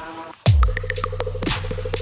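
Electronic music with a beat. After a brief drop-out, the beat comes back in about half a second in. Deep kick drums fall in pitch about once a second over a held bass line, with a fast stuttering synth note and ticking percussion on top.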